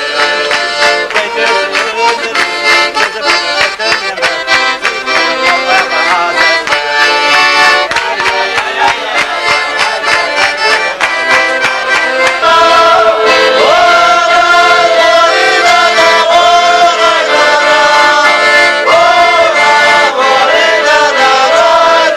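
Piano accordion playing a lively folk tune, with quick rhythmic hand claps through the first half. About halfway through, the music changes to a smoother, wavering melody.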